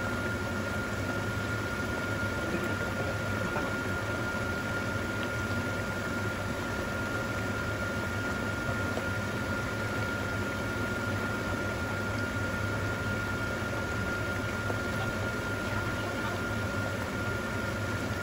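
Pork intestines bubbling hard in a pan of liquid on an electric stove, a steady boiling bubble. A steady high-pitched tone runs beneath it.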